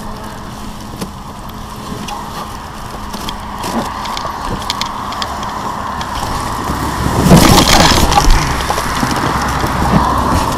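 Gas balloon's wicker basket dragging through standing wheat: a steady rustle of stalks being pushed over and crushed, swelling to a loud crackling swish about seven seconds in.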